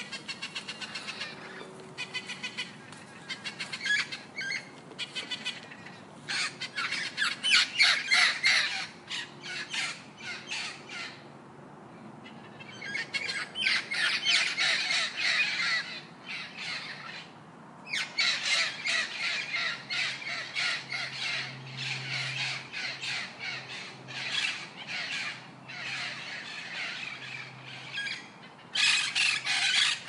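A flock of red-and-green macaws squawking: many harsh, raucous calls overlap in loud bouts of several seconds, with short lulls between them.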